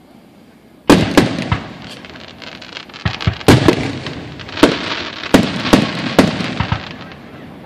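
Aerial fireworks shells bursting: a string of loud, echoing bangs beginning about a second in, some coming in quick clusters, then tailing off near the end.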